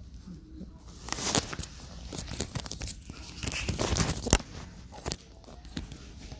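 Rustling and crinkling close to the microphone: a dense run of irregular crackles and clicks, with one sharp louder click about four seconds in.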